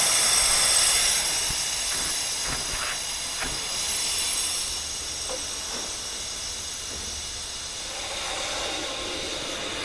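Air-powered Chip Trapper drum vacuum running: a loud, steady hiss of compressed air as its wand sucks old coolant out of the CNC machine's sump.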